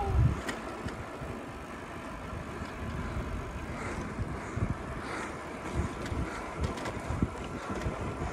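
Wind on the microphone: a steady low rumble with uneven gusts.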